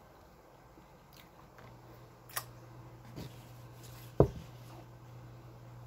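Plates being handled on a table: a few light clicks, then about four seconds in one sharp knock of a plate against the table or another plate, over a steady low hum.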